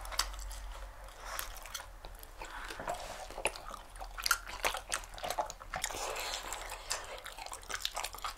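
Close-up mouth sounds of two people biting and chewing soft, sticky jeolpyeon rice cakes filled with sweet hotteok filling with peanuts: a run of small wet clicks and smacks, scattered irregularly throughout.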